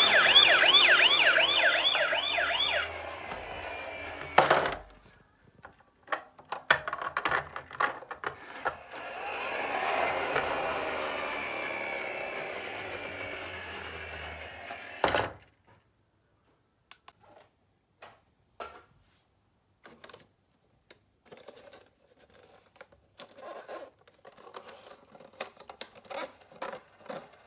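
Toy ambulance's electronic siren wailing fast for about four seconds, then cutting off with a click. Plastic toy cars clack and click, a second hissy toy siren sound runs for about six seconds and stops abruptly, and scattered light clicks and rattles follow.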